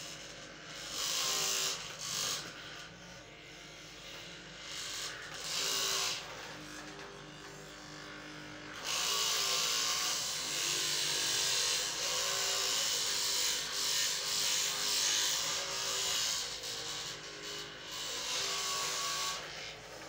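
A small electric motor buzzing in spells: two short bursts, then a longer run of about eleven seconds starting about nine seconds in.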